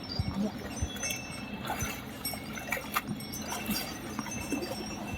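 Small bells on bullocks jingling and clinking irregularly, with light knocks.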